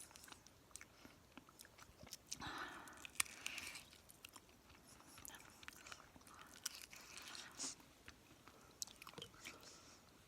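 Close-miked ASMR chewing and mouth sounds: many small clicks and smacks of the mouth, with a longer breath about two and a half seconds in.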